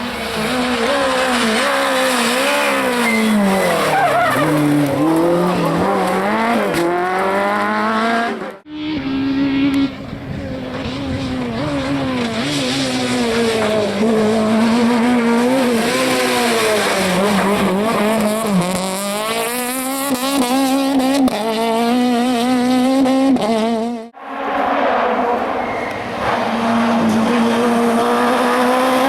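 Citroën AX Kit Car rally cars' four-cylinder engines revving hard, the pitch climbing and dropping again and again with gear changes and lifts off the throttle. The sound is broken by two abrupt cuts, one about a third of the way through and one near the end.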